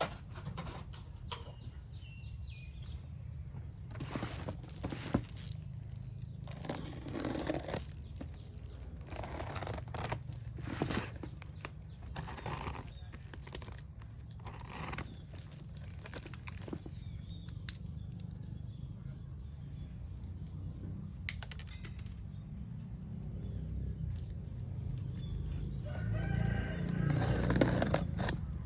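Cardboard box and plastic packaging being handled and opened, irregular rustling and light knocks over a steady low hum, with a louder spell of rustling near the end.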